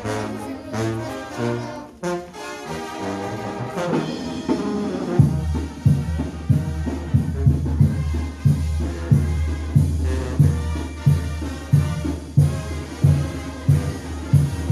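Mexican banda brass band playing, with trumpets and trombones carrying the tune. About five seconds in, a steady, evenly pulsing bass-and-drum beat comes in under the brass.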